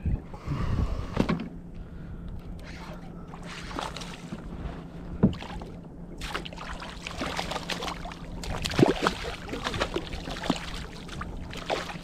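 A fish being fought and landed from a plastic kayak: scattered splashes and short knocks of gear against the hull. A low steady hum runs underneath from about a second in.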